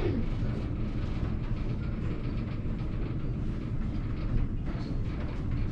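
Water-powered mill machinery running: belts and wheels turning with a steady gentle rattle hum over a constant low rumble.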